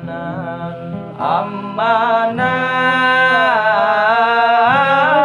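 A solo voice singing an Arabic devotional song, drawing one vowel out into a long, ornamented run that bends up and down in pitch, over acoustic guitar accompaniment. The longest held note starts about two seconds in.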